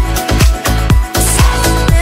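Electronic dance-style background music with a steady drum beat.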